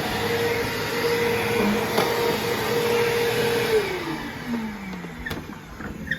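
Bissell CleanView Revolution Deluxe upright vacuum running with a steady motor whine. A little over halfway through it is switched off, and the whine falls in pitch as the motor winds down.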